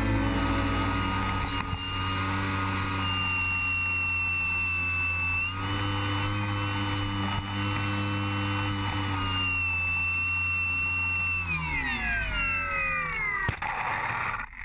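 Brushless electric motor and propeller of a Skywalker X8 flying wing, heard from an onboard camera, running with a steady whine that steps slightly in pitch, then spinning down in a falling whine near the end as the plane lands; a single sharp knock comes just before it settles.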